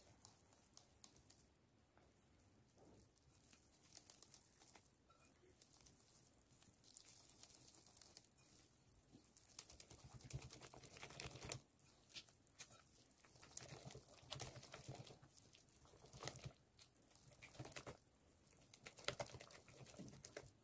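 Wire whisk beating flour and milk into a vegetable crepe batter in a glass bowl: faint, rapid ticking of the wires against the glass, growing louder and busier about halfway through.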